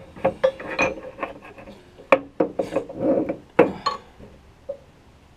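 Steel connecting rods and bearing caps on a Subaru crankshaft being handled: an irregular run of sharp metallic clinks and knocks with some rubbing between them, dying down after about four seconds.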